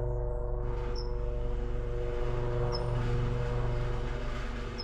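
A steady low mechanical hum made of several constant tones, with three brief high chirps: about a second in, near the middle and at the end.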